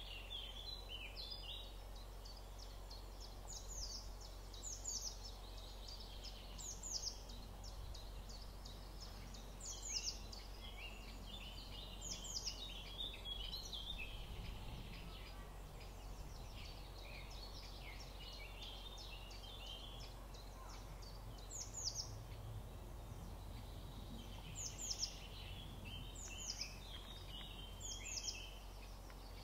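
Several songbirds singing: repeated high, downward-sweeping notes in short groups every second or two, over lower warbling chatter. A steady low hum runs underneath.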